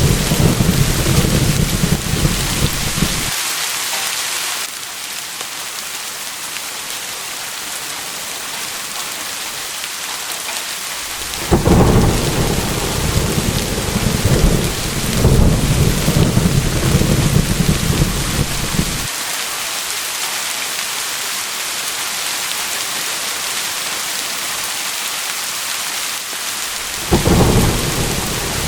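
Steady rain with rolling thunder: a rumble at the start that dies away, a longer one through the middle, and another near the end.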